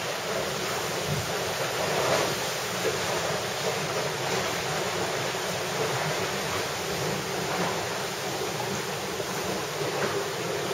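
Steady rushing of water along a sailboat's hull, heard from inside the cabin while the boat is under way.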